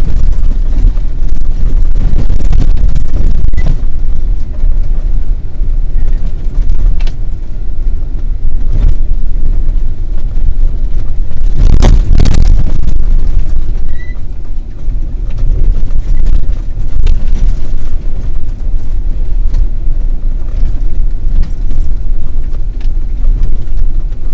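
Off-road vehicle driving over a rough dirt track: a loud, steady low rumble of engine and tyres, broken by several knocks and jolts from bumps, the biggest about twelve seconds in.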